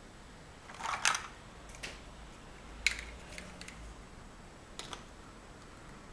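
Large plastic Mega Bloks First Builders blocks being handled and snapped together: a brief clatter about a second in, then a few sharp separate clicks.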